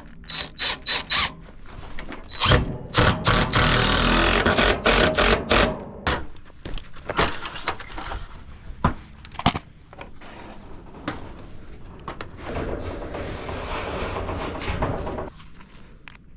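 Workshop work with hand tools: a few sharp knocks, then rough scraping mixed with clattering knocks. There are scattered knocks, then another long stretch of scraping that stops suddenly near the end.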